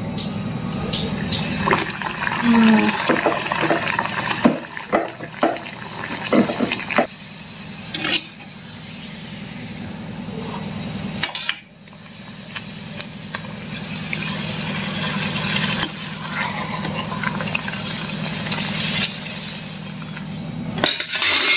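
Besan puris deep-frying in hot oil in a kadhai: a steady sizzle, with short clinks of a slotted steel spoon in the first few seconds.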